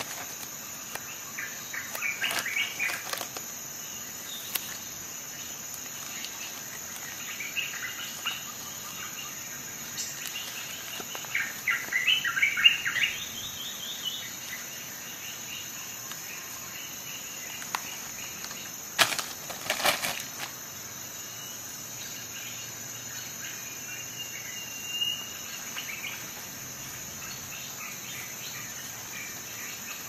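Plastic wrapping crinkling and rustling in hands in a few short bursts as new leather knife pouches are unpacked, with two short sharp noises about two-thirds of the way through. A steady high-pitched background drone runs under it.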